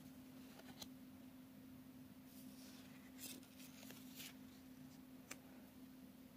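Near silence: faint sliding and light ticks of oracle cards being handled and laid onto a stack, over a low steady hum.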